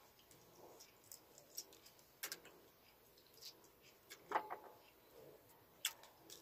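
Faint eating sounds: scattered small clicks and crackles as fingers pick at a balut egg's shell, with a brief mouth sound about four seconds in.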